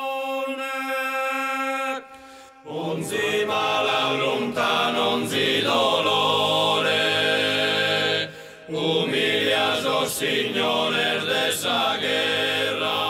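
A group of voices singing a slow chant in harmony, holding long notes; it breaks off briefly about two seconds in and again about eight seconds in.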